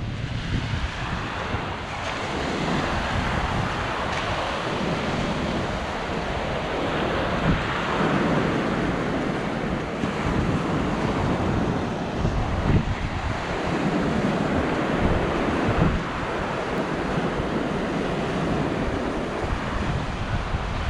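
Sea waves breaking and washing up the beach in repeated surges that swell and fade every few seconds, with wind buffeting the microphone.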